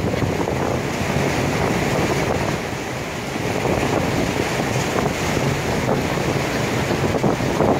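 Wind buffeting the microphone over the rush of water churned up by a passenger ferry under way.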